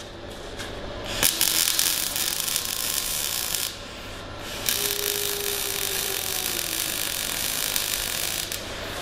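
MIG/MAG welding arc on steel pipe laying tack welds: a steady crackling hiss in two runs of a few seconds each. The first starts about a second in and stops near the middle; the second starts a second later and stops shortly before the end.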